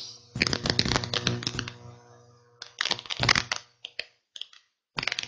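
Rapid clicking and tapping like typing on a computer keyboard, in two dense bursts in the first three and a half seconds, then a few scattered single clicks.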